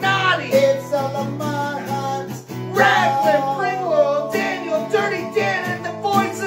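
Acoustic guitar strummed steadily, with a man singing a melody over it.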